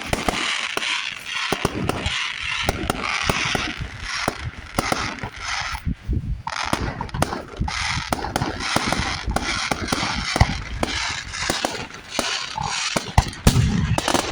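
Fireworks going off: dense crackling mixed with many sharp bangs, with a brief lull about six seconds in.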